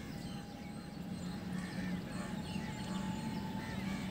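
WAP-7 electric locomotive approaching at the head of an express train: a steady low hum with a faint higher whine above it, both rising a little in pitch and slowly growing louder. Birds chirp now and then over it.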